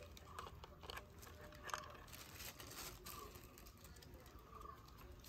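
Near silence: faint outdoor room tone with a few scattered soft clicks and rustles.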